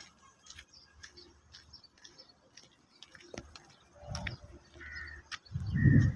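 Faint bird calls and scattered light ticks outdoors. Near the end a loud, low-pitched noise starts and covers them.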